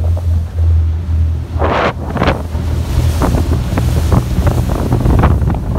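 Wind buffeting the microphone on a boat running at speed, with water rushing and splashing against the hull. There is a burst of spray about a second and a half in and a run of short sharp slaps in the second half.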